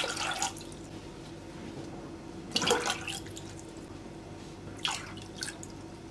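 Water poured from a drinking glass into a stainless steel pot of sugar for syrup, splashing in a short pour at the start and again about two and a half seconds in, with fainter splashes near five seconds. A low steady hum runs underneath.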